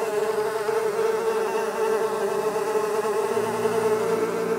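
Flies buzzing as a swarm: a steady, slightly wavering buzz.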